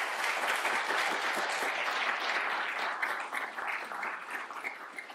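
Audience applauding at the end of a lecture, a dense clapping that thins out into scattered separate claps over the last couple of seconds.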